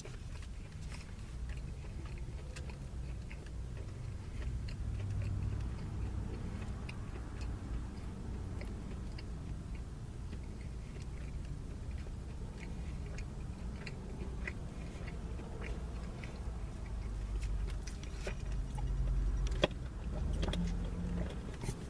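A person chewing and eating food, with scattered small clicks and crackles, over a steady low rumble. A few sharper clicks come near the end.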